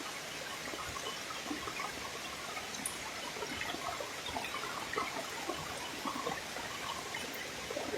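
Water trickling and splashing steadily, with many small drops.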